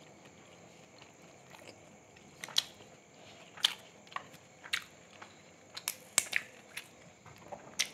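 Eating close to the microphone: sharp, irregular crunches and clicks of chewing and handling food, starting a couple of seconds in and coming more often toward the end.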